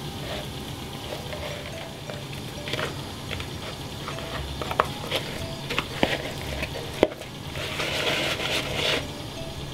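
Hands rubbing dry seasoning into whole black bream in a plastic bowl: wet rubbing and slapping of the fish skin, with a few sharp knocks against the bowl, the loudest about seven seconds in.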